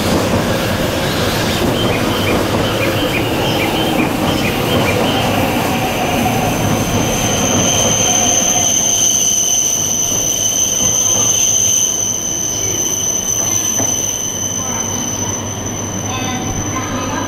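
Shinkansen train pulling out past the platform, its cars rumbling with rhythmic clicking over the rail joints. About halfway through, a steady high-pitched squeal from the wheels on the curving track sets in and holds as the last cars draw away.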